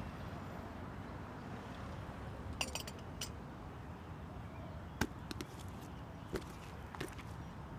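Café ambience, a low steady murmur, with a porcelain coffee cup clinking down onto its saucer about two and a half seconds in, followed by a few single sharp knocks.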